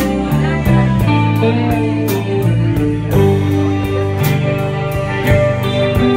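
Live rock band playing an instrumental jam: electric guitars over a moving bass line and a steady drum beat with cymbal hits.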